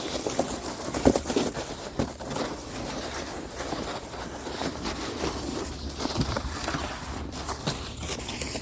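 Irregular crunching and scuffing steps in deep snow.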